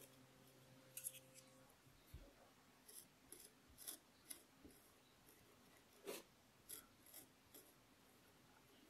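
Pointed wooden modelling tool scraping and incising lines into the surface of a leather-hard clay plate: faint, irregular short scratches, a few at a time, with gaps between.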